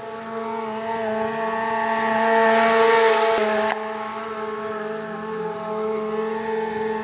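Ride-on lawn mower's engine running steadily while cutting grass. It grows louder a second or two in as the mower comes nearer, then drops suddenly about halfway through.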